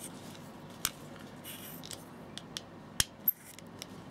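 Small metal clicks and a faint scrape as the coin-slotted battery cover of a Nikon F Photomic FTN finder is turned with an aluminium coin and taken off. A few scattered clicks, the sharpest about three seconds in.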